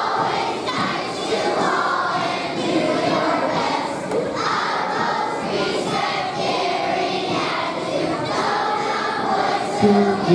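A large group of schoolchildren singing a song together, many voices blending into one loose, steady chorus of the school's good-conduct song.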